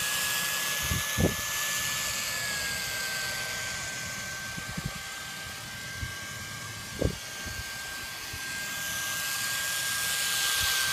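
Cordless drill motor, rewired to run off a repurposed AC adapter, running with a steady high whine that dips slightly in pitch a couple of seconds in. A couple of sharp knocks come about a second in and again around seven seconds.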